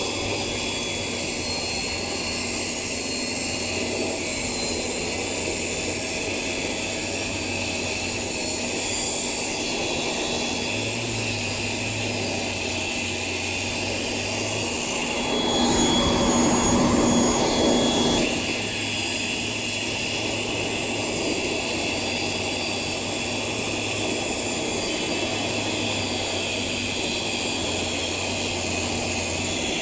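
Circular saw running continuously while it cuts concrete, a steady, even machine noise. It grows louder for a couple of seconds about halfway through.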